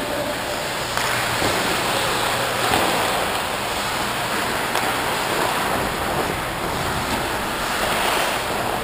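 Steady rushing noise from a skater moving on the ice: wind over the body-worn camera's microphone, mixed with skate blades scraping the ice.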